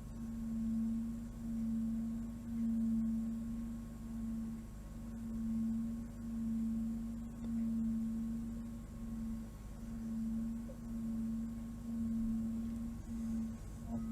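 A single steady low pure tone, a meditation drone, held throughout and swelling and fading about once a second.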